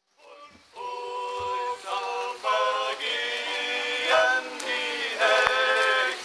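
A group of voices, mostly men, singing together to two strummed acoustic guitars, starting just under a second in.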